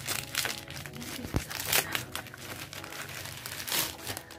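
Gift packaging crinkled and rustled by hand as it is opened: a run of sharp crackling rustles, loudest about a second and a half in and again near the end.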